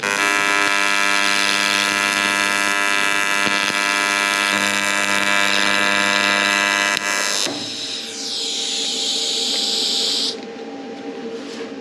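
AC TIG welding arc on aluminium buzzing steadily while a corrosion hole in a fuel tank is filled with rod. About seven seconds in the buzz stops and a hiss follows for about three seconds.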